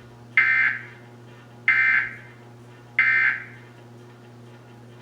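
Emergency Alert System end-of-message data tones: three short bursts of buzzing digital data squawk about 1.3 seconds apart. They mark the end of the alert message.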